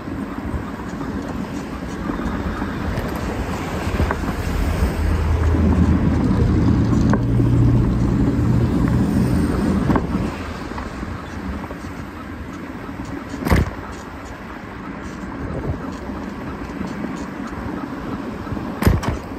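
Street traffic heard from a moving bicycle: a motor vehicle's engine comes up and passes, loudest from about four to ten seconds in, over a steady rushing noise. Two sharp knocks come, one past the middle and one near the end.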